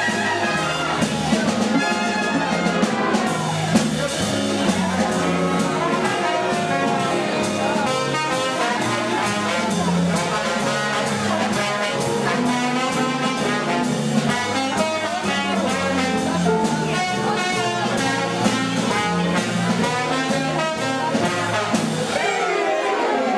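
Big band playing swing jazz: a trombone solos over the saxophones, brass and rhythm section, with a steady swing beat throughout.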